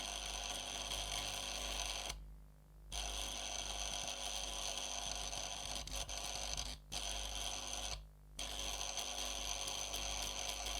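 Vintage Russian electric arc engraver (Arkograf) buzzing and crackling as its electromagnetically pulled tip arcs against metal, engraving it. The sound stops briefly twice, about two seconds in and about eight seconds in.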